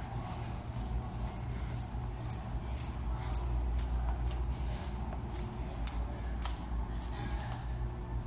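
Someone walking: light metallic clicks and jingles, about two or three a second, over a steady low hum.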